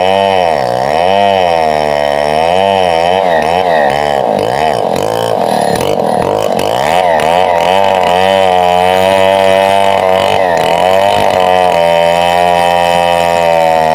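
Stihl MS 070 two-stroke chainsaw cutting into a large mango trunk, its engine pitch rising and falling about once a second as the bar loads and frees in the cut. About halfway through the sound turns ragged, then the saw settles into a steadier note for the rest of the cut.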